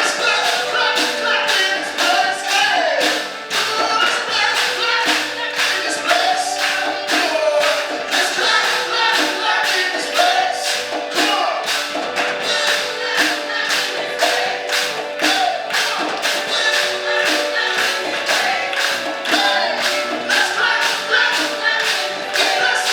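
Gospel-style worship music: a choir singing over a steady percussive beat.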